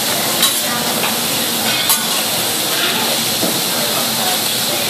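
Diced chicken sizzling on a hot teppanyaki griddle, a steady hiss, while steel spatulas scrape and clack against the griddle plate, two sharp clacks about half a second in and just before two seconds in.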